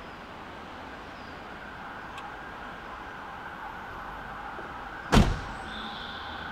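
A car door shut once with a sharp thud about five seconds in, over a steady background hum, with a faint click about two seconds in.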